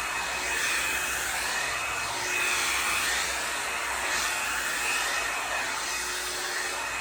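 Revlon One-Step Volumiser hot-air brush running, a steady blowing hiss with a faint high whine that swells a little now and then.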